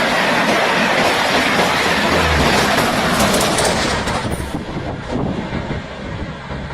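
Indian Railways express train passing at speed, the loud rush of its coaches going by, dropping off about four seconds in and fading as the train moves away.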